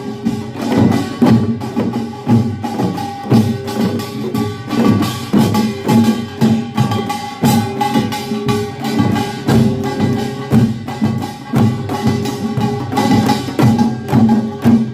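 Korean pungmul farmers' band playing: rapid clattering strikes of small gongs and drums in a driving rhythm, with a few held ringing pitches over them.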